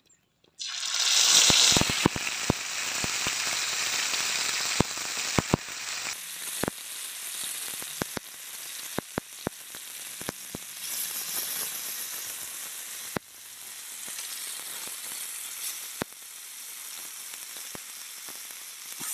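Marinated murrel fish steaks sizzling in hot groundnut oil on a flat dosa griddle. The sizzle starts suddenly and loudly about half a second in as the first fish goes into the oil, then carries on with frequent sharp pops and spits of oil.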